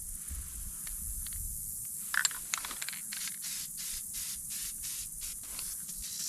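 Aerosol can of Rust-Oleum paint spraying in a string of short bursts, starting about two seconds in.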